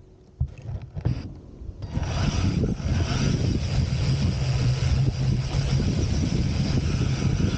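A large radio-controlled off-road car's motor runs steadily as the car drives off across loose sand. It starts about two seconds in, after a quieter stretch with a few sharp clicks.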